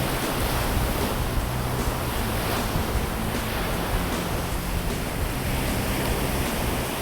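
Ocean surf breaking and washing on a beach, a steady rushing noise, with wind buffeting the microphone.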